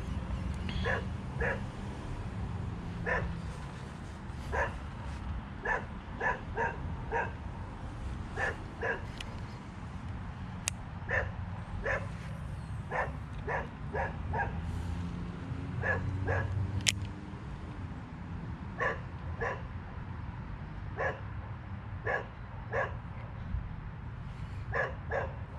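A dog barking over and over in short single barks at an uneven pace, over a steady low background rumble.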